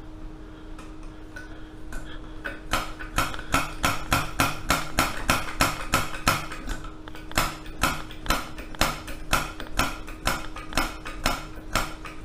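Rapid, even metallic clicking, about four to five clicks a second, from hands working the brass burner head of a vintage gasoline blowtorch to get fuel flowing. The clicking starts about two seconds in, over a steady low hum.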